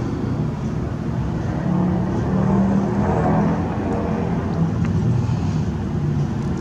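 A motor vehicle engine running, a steady low hum that shifts in pitch and grows a little louder around the middle.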